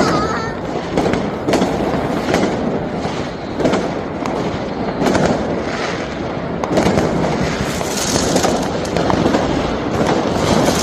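Fireworks and firecrackers going off all around in a dense, continuous barrage: a steady crackle with many sharp bangs every second or so.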